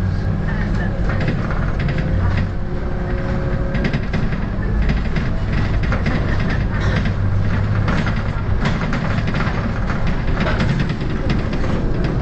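Interior sound of a Volvo B7RLE single-deck bus under way: the diesel engine and driveline make a steady low drone, with a faint whine over the first few seconds. Frequent short rattles and clicks from the bus body.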